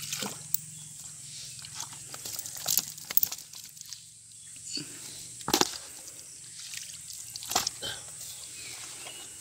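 Live fish slapping and thrashing in a plastic bucket and in shallow water: several sharp slaps and splashes, spaced out and irregular.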